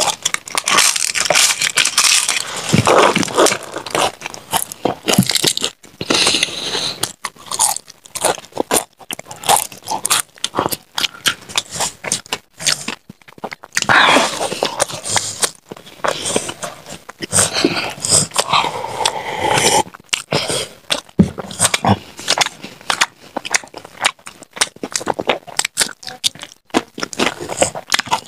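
Eating sounds: crisp papad and fried snacks being bitten and crunched, then chewed, in an irregular run of crackling crunches with short pauses between bites.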